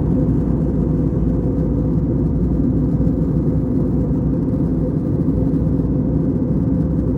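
Steady low rumble of a jet airliner's cabin in cruise: engine and airflow noise heard from a passenger seat.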